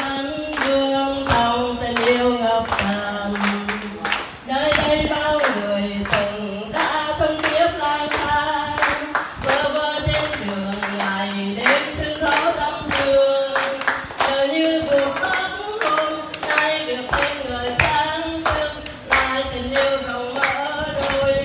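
An elderly woman singing unaccompanied into a microphone, amplified through a loudspeaker, while people clap along in a steady beat.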